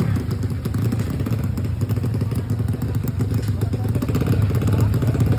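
A 155cc automatic scooter engine idling steadily.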